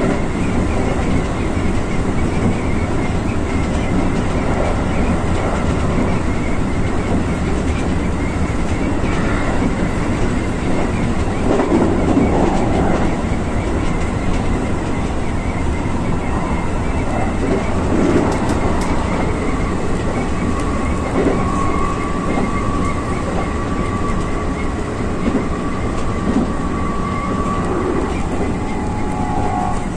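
Keikyu electric commuter train running at speed, heard from inside the driver's cab: a steady rumble of wheels on rail with a few rail-joint knocks. In the last third a thin, high steady squeal joins in as the track curves.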